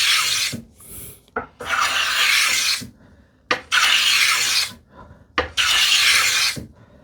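Hand plane cutting along the corner of a wooden tambour slat in four strokes, each about a second long with short pauses between: a small chamfer being planed so the slat won't catch in its curved track.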